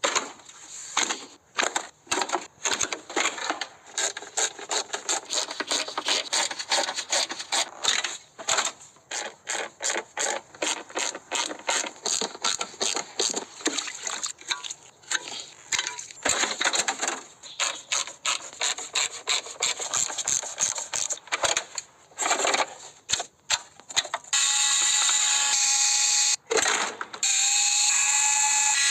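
Rapid, irregular clicking and scraping of tools working on an object, then a steady high-pitched whine from a small motor starting a few seconds before the end.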